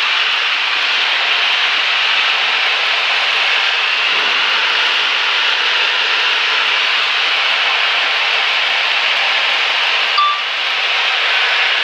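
Cessna 172's engine and propeller running steadily, heard inside the cabin as a loud even drone. A short high tone sounds about ten seconds in.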